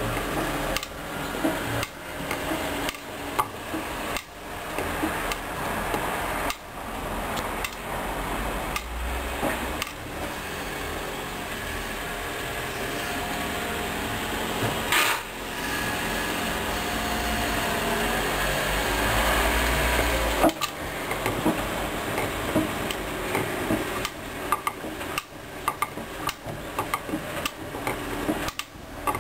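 Hoover DYN 10124DP washing machine on its last rinse: the drum turns with the load of jackets knocking and clattering inside it. A steady motor hum runs under the knocks from about halfway and ends with a sharp clunk about twenty seconds in.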